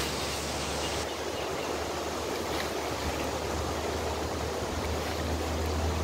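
Strong wind buffeting the microphone: a steady rushing noise with a low rumble that grows stronger near the end.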